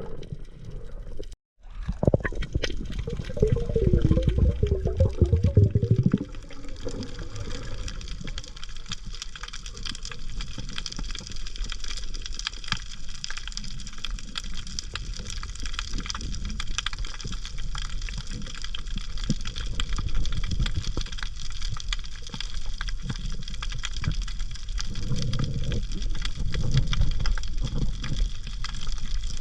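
Water and bubbles, likely heard underwater: a rush of bubbles from about two to six seconds in and again near the end, over a steady crackling hiss.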